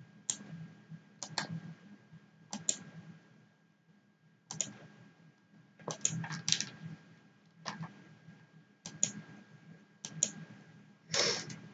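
Computer mouse and keyboard clicks: short, sharp single clicks and quick double clicks about a second apart, with a short flurry near the end, as text is selected, copied and pasted.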